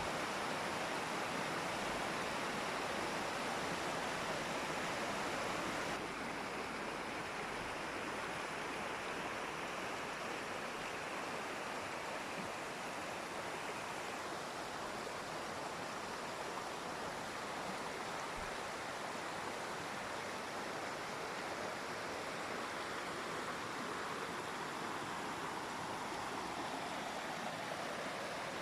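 Waterfall: a steady rush of falling water, stepping down slightly in loudness and brightness about six seconds in.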